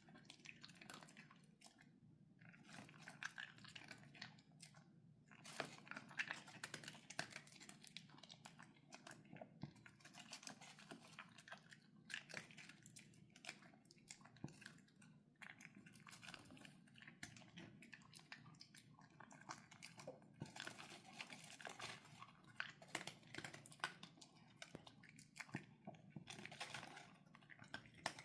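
A pet crunching and chewing dry kibble: runs of sharp crunches a couple of seconds long, with short pauses between them.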